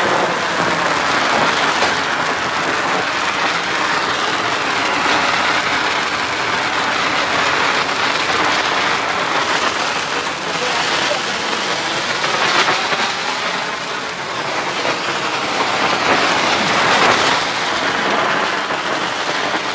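Handheld sparkler gun firework spraying sparks with a steady, loud hiss and fine crackling.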